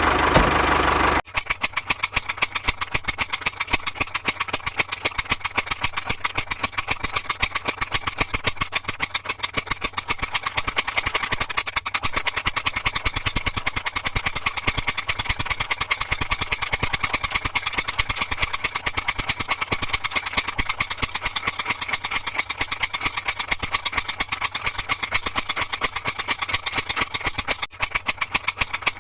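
A miniature DIY tractor's small engine running steadily at idle, a fast even chatter of firing strokes. A second of music plays first and cuts off abruptly.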